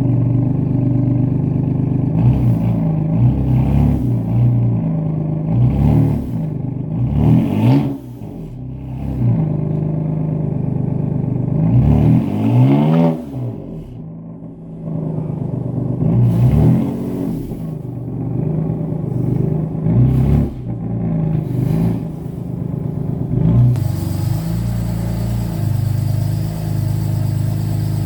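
A car engine being revved again and again, its pitch climbing and dropping back with each blip, with one longer rev about halfway through and steadier running near the end.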